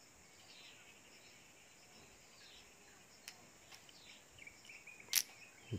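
Quiet background with faint high chirping, and a few light clicks from about three seconds in, the sharpest near the end: small metal hydraulic relief-valve parts handled in the fingers.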